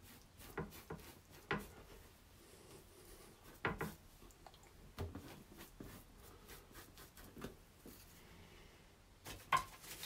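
Bristle brush dabbing and scrubbing paint onto a painting board: faint, scattered taps and scrapes at irregular intervals.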